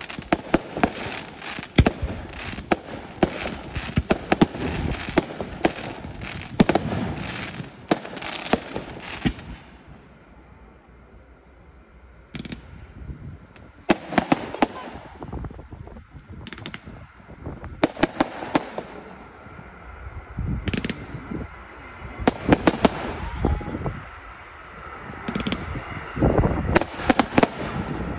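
Fireworks display: shells bursting with sharp bangs and crackling, a dense run of bursts for about the first nine seconds, a short lull, then further clusters of bursts through the rest.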